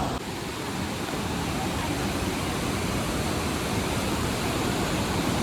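Water pouring down a waterfall, a steady rushing noise with no breaks.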